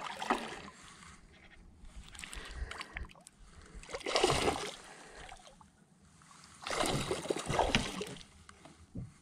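A hooked bass splashing and thrashing at the water's surface beside a kayak during the fight, in separate bursts: a short one near the start, a bigger one about four seconds in, and a longer one around seven seconds in.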